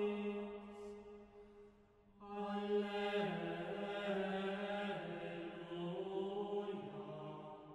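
Unaccompanied choir singing a slow sacred piece in long held chords. One phrase dies away about two seconds in, then the voices come back fuller, move through a few chord changes and fade near the end.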